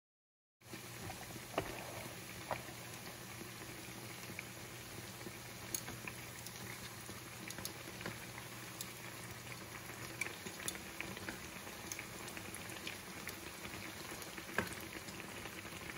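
Pasti dough pieces deep-frying in hot oil, a steady bubbling crackle that starts about half a second in. A few sharp clicks stand out, the loudest near the end as the pieces are turned with metal tongs.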